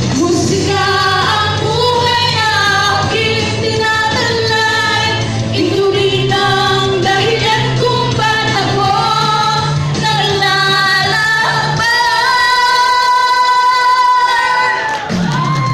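Two women singing into microphones over backing music. About twelve seconds in, the bass of the backing drops out and they hold one long note.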